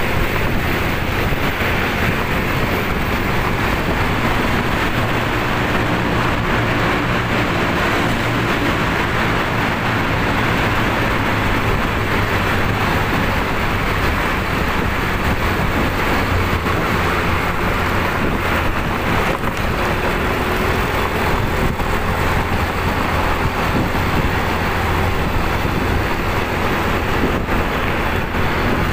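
Steady wind rush on the microphone of a moving motorcycle, with the engine running and road noise underneath.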